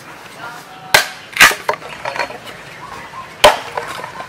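Axe chopping wood: three sharp blows into a log, the first about a second in, the next half a second later, and a third near the end, with a few lighter knocks of splitting wood between them.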